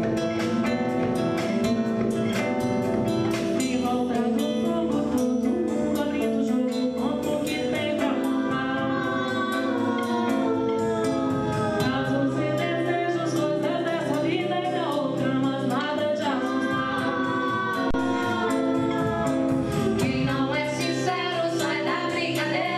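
Female vocal trio singing in close harmony over live band accompaniment of guitar, bass and drums.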